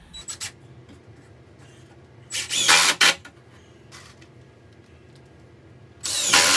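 Cordless drill driving deck screws into 2x4 braces: a short blip at the start, then two runs of about a second each, one near the middle and one at the end.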